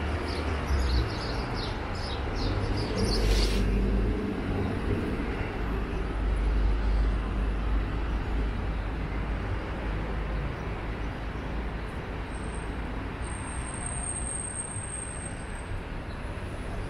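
City street ambience: a low, steady rumble of road traffic. A run of light ticks comes in the first three seconds or so, and a thin high whine sounds from about twelve to sixteen seconds in.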